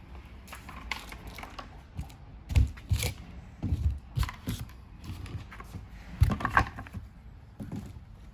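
Irregular knocks and clatters of hard plastic quad bike parts being handled and set down, several sharp taps among them.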